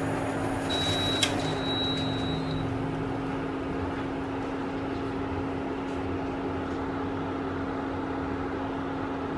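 Steel saucepan of sauce boiling on an electric cooktop, over the cooktop's steady hum and fan noise. About a second in, a thin high tone sounds for about two seconds, broken by a click.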